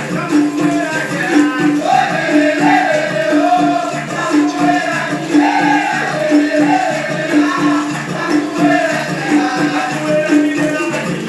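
Music with a steady repeating low note and a melody over it.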